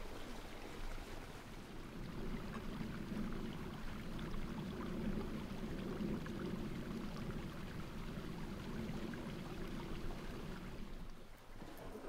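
Faint, steady rushing outdoor ambience, a low wash of sound with no distinct events, dropping away near the end.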